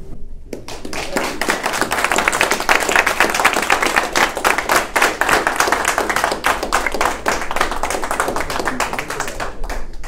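Audience applauding after a talk. The clapping starts about half a second in and thins out near the end.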